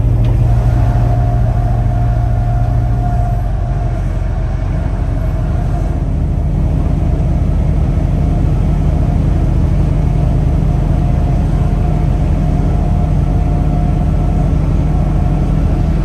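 Peterbilt 579 semi-truck's diesel engine running steadily, a low drone with a thin steady whine above it. The low engine note changes about three and a half seconds in.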